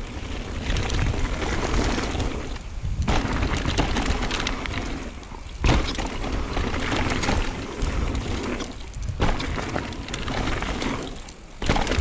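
Mountain bike ridden fast down a dirt jump line: tyres rumbling and crunching over packed dirt and loose leaves, with the bike rattling and wind on the microphone. The noise drops away briefly a few times as the bike goes over the jumps, and a sharp thud of a landing comes about halfway through.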